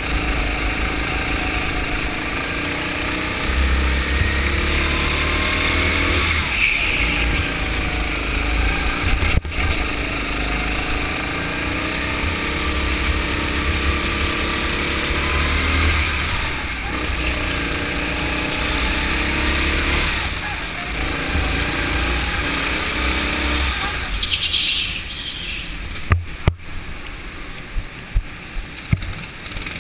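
Go-kart engine heard from an onboard camera on the kart, its note rising and falling as it accelerates and brakes through the corners. Near the end the engine note drops and a few sharp knocks are heard.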